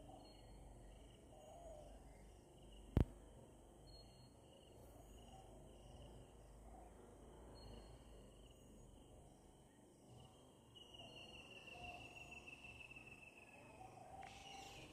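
Faint insects trilling steadily in quiet open air, with one sharp loud click about three seconds in. A faint high whistle slowly falls in pitch over a couple of seconds near the end.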